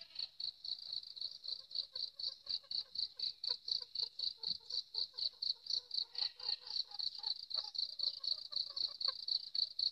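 Insect chirping steadily: a high-pitched pulsed chirp repeating about four times a second.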